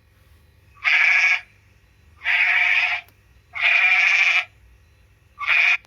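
Goat bleating four times: three longer bleats and a shorter one near the end.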